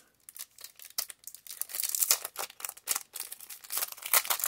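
Clear plastic wrap crinkling and crackling as it is handled and pulled off a small red plastic piece. The crackles are quick and irregular, sparse at first and thicker from about two seconds in.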